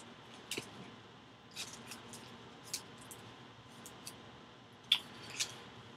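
A baseball card being handled: a few faint, scattered clicks and rustles of card stock, the sharpest one about five seconds in.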